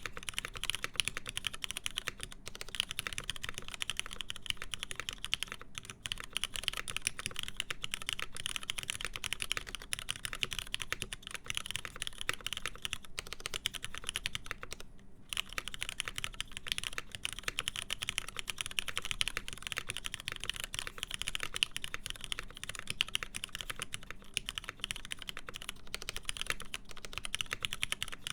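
Steady, fast typing on a Linworks Montage mechanical keyboard with lubed, filmed MX Black linear switches in a full aluminum plate and PBT keycaps. Keystrokes come in a dense, continuous stream, with a brief pause about halfway through.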